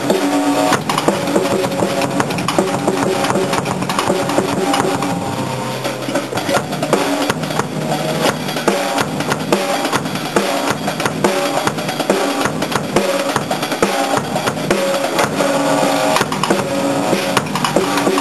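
Band jamming: a Premier drum kit played continuously, with kick drum, snare and cymbals, over held notes from other instruments.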